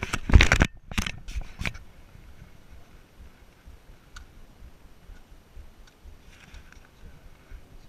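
Close rubbing and scraping against the camera's microphone as the camera is moved: a burst of loud scrapes in the first second and a half, then only faint scattered ticks.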